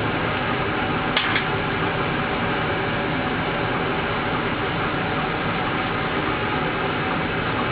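Steady rushing background noise, like a fan or air conditioner, with two short clicks just over a second in.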